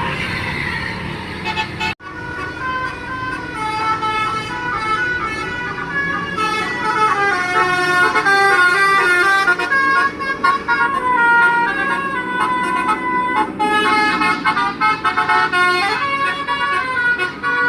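Bus multi-note musical air horn (basuri telolet horn) playing a stepping, many-note tune over the bus's engine noise. The sound breaks off suddenly about two seconds in, then a tune starts again and keeps going.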